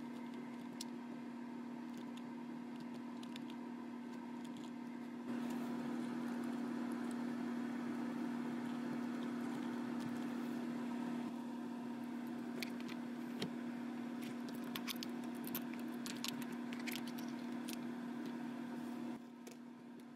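Scattered light metallic clicks and taps from hand tools (ratchet, socket and extension) at a spark plug well, over a steady low hum. The hum gets louder about five seconds in and drops near the end, and the clicks come most often in the second half.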